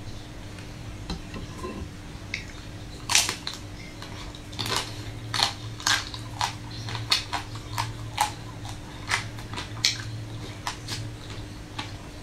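Close-miked biting and chewing of a chocolate-coated ice cream bar: the hard pink shell cracks in a series of sharp, irregular crunches beginning about three seconds in. A faint steady low hum runs underneath.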